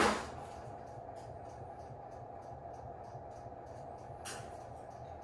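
Steady low room hum with faint, evenly spaced light ticks, about three a second, from steel leader wire being twisted by hand into a wire knot; a brief hiss about four seconds in.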